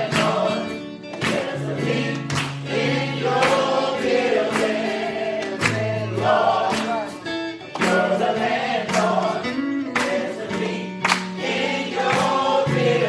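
Gospel choir singing with a live band, sustained low bass notes under the voices and a drum striking about once a second.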